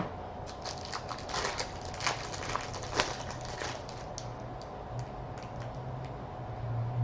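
Trading cards and their packaging being handled: a sharp click at the start, then a quick run of crinkling and clicking over the first few seconds that thins out toward the end.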